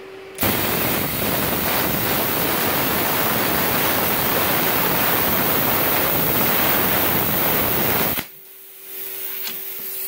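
Plasma cutter (Everlast 50-amp inverter) cutting through a metal strip. A loud, steady hiss of the arc and compressed air starts about half a second in and cuts off suddenly about eight seconds in, followed by a softer hiss of post-flow air. The arc holds through the whole cut, the sign that the stuck air solenoid fault is cured.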